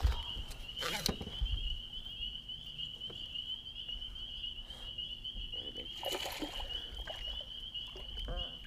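Steady high-pitched chorus of calling animals with a slight warble, typical of frogs or insects at dusk. A sharp knock comes at the very start, the loudest moment, and another about a second in.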